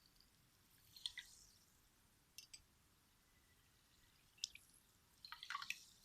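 Near silence broken by a few faint drips and light clicks as spoonfuls of mineral water are added. The drips and clicks come about one second in, twice around two and a half seconds, once at four and a half seconds, and in a small cluster near the end.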